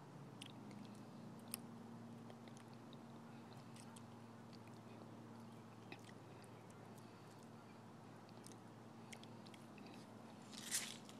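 Fox squirrel chewing and gnawing on food held in its paws: faint, irregular crunching clicks, with a louder brief rustle near the end.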